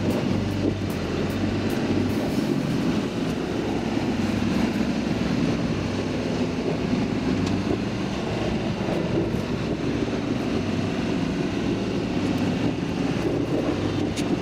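Electric rapid train running at speed, heard from inside the front car: a steady rumble of wheels on the rails with a low hum.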